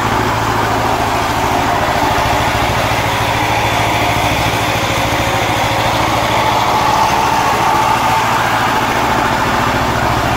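Walking tractor's single-cylinder diesel engine running steadily with a fast, even beat while it is driven over spread rice straw.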